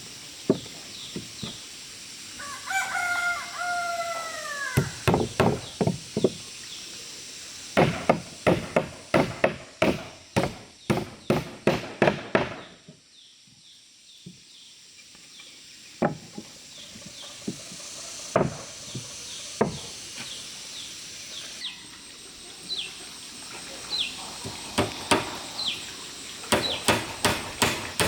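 A rooster crows once, about three seconds in. Runs of sharp hammer strikes on wood, roughly two to three a second, follow it, pause briefly in the middle and start again near the end. Small birds chirp faintly in the background.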